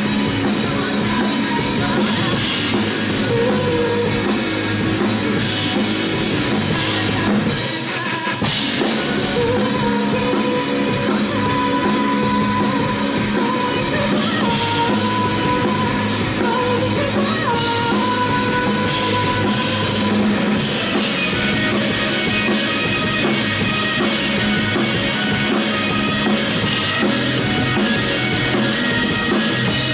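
Live rock band playing, with a full drum kit driving the song.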